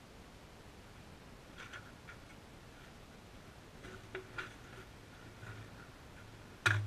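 Light clicks and rattles of soldiers' gear and weapons as they move into position, ending in a single sharper knock near the end.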